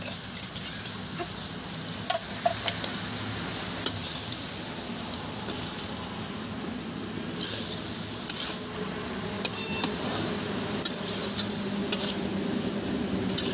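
Meat and masala sizzling in a metal kadhai while a steel ladle stirs and turns it, scraping and clinking against the pan at irregular moments. This is the bhuna stage, the meat being fried dry in its spice paste before water goes in.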